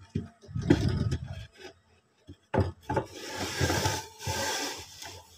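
Wooden egg trays being slid back into a homemade wooden incubator rack. Wood knocks on wood a few times, then from about two and a half seconds in there is a longer scraping rub.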